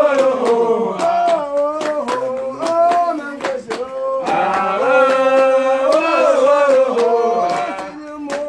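Men's voices singing a chant together, with steady handclaps about two to three a second. The singing drops briefly near the end, then picks up again.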